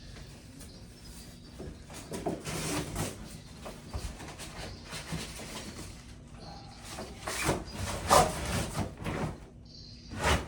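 A cardboard box and its packing being handled: irregular scraping and rustling in bursts, loudest a little past the middle, with a short knock near the end.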